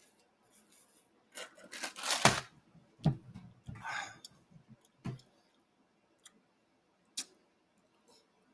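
Handling noise: a burst of rustling about a second in, then a few dull knocks and some light, separate clicks toward the end.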